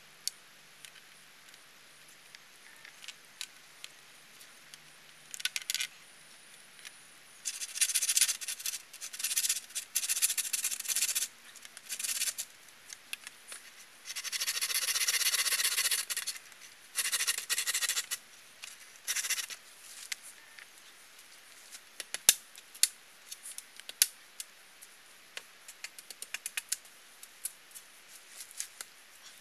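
Hand work on a bamboo frame: bursts of rasping, scraping friction, one run lasting about two seconds, then a run of light clicks and taps in the last third.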